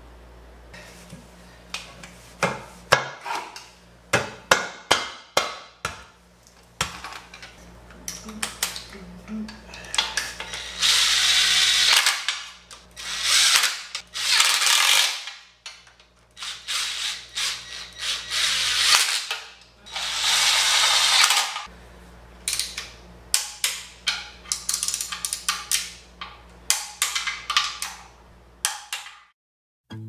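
Cordless drill-driver with a socket extension running bolts into an engine's aluminium oil pan, in three longer bursts in the middle. Around them come many quick clicks and clanks of metal parts and hand tools.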